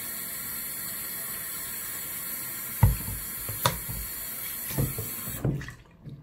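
Bathroom sink faucet running steadily, water pouring into the basin, with a few short dull thumps, the loudest about three seconds in. The running water cuts off suddenly near the end.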